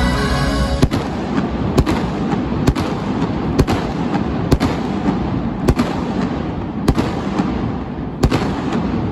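Indoor victory fireworks bursting under a stadium's dome roof: a run of about eight sharp bangs, roughly a second apart, over a continuous noisy background. Music stops about a second in, as the first bang goes off.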